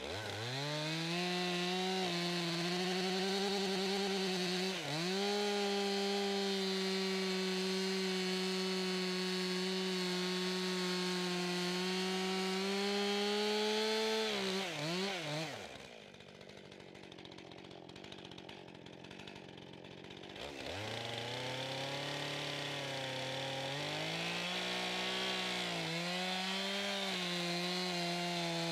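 Stihl two-stroke chainsaw revving up and cutting into the end grain of a log at full throttle, its pitch dipping briefly about five seconds in. About halfway through it drops back to idle for some five seconds, then revs up and cuts again, letting off right at the end.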